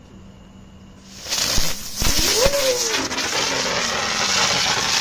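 A ground firework catching about a second in and spewing sparks with a loud, steady hiss, a few pops as it takes light.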